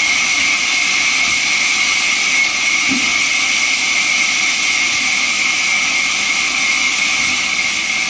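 Large vertical band saw running steadily while wooden boards are fed through the blade, a loud, unbroken, mostly high-pitched rushing noise.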